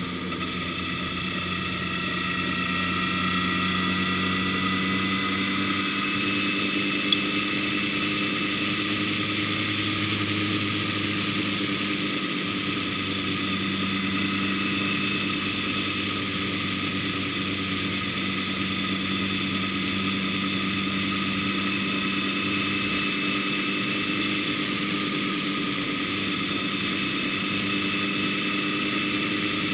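A vehicle's engine running steadily while driving along a road, its pitch rising a little over the first few seconds and then holding. About six seconds in, a steady hiss of wind and road noise joins it and stays.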